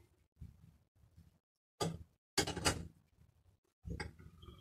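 Allen key working a tight bolt on a BMX stem: short bursts of metal scraping and clicking, then a creaking squeak near the end as the stuck bolt turns.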